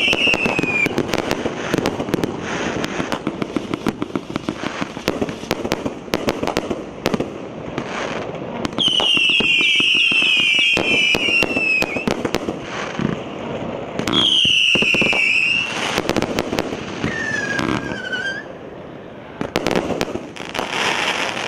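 1-inch, 250-shot consumer fireworks battery firing in rapid succession, with dense cracks, pops and crackling bursts throughout. Several bouts of high whistles fall slightly in pitch, near the start, in the middle and after about two-thirds. The volley thins briefly a little before the end, then swells again.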